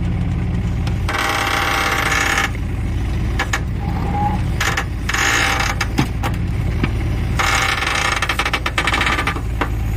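JCB digger working a bucket over a trolley load of broken stone: its diesel engine runs steadily underneath three spells of loud hissing, rattling noise from the bucket, hydraulics and stone, with scattered clicks.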